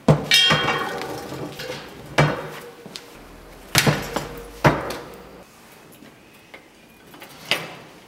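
A series of sharp knocks and clunks, about six, spaced a second or two apart, as a spoked bicycle wheel and its parts are handled on a wooden workbench. The first knock is followed by about a second of metallic ringing.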